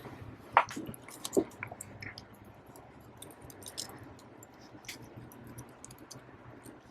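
Small crisp clicks and taps of tools and parts being handled during an iPad repair, with two louder knocks in the first second and a half and scattered light clicks after.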